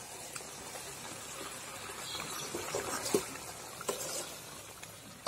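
Pork pieces sizzling as they fry in a kadai, with a spatula scraping and knocking against the pan, the sharpest knocks about three and four seconds in.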